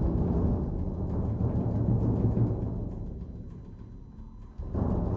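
Low drum roll on large vintage bass drums struck with soft mallets. It fades away from about three seconds in, then a fresh stroke comes in sharply near the end.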